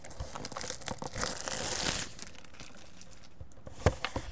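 Packaging of a Topps Archives Signature Series card box crinkling and tearing as it is opened by hand, densest between about one and two seconds in. A single sharp tap comes near the end.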